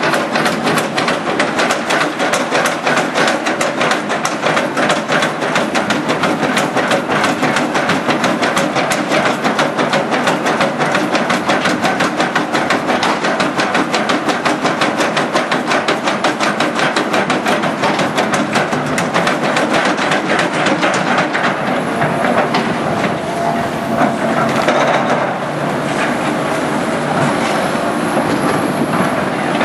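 Crawler excavators working through wood and rubble debris: a fast, continuous clatter that thins about two-thirds of the way through into a steadier machine sound with a faint high whine.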